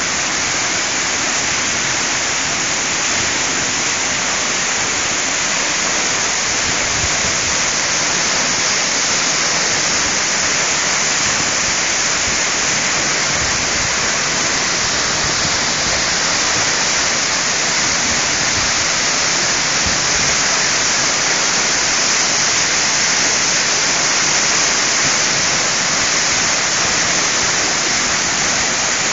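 Waterfall pouring into a plunge pool between narrow rock walls: a loud, steady rush of falling water.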